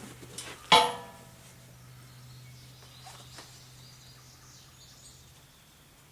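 A single rifle shot about a second in: one sharp, loud crack with a short ringing tail, fired at a steel target at 200 yards. A steady low hum runs underneath, and faint high chirps follow later.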